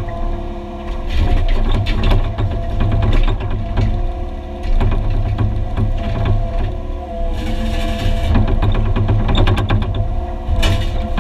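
Excavator's diesel engine running steadily under load, with irregular clanks, knocks and scraping as concrete slab is broken and dragged by the machine. The knocking comes in dense clusters, heaviest in the first few seconds and again near the end.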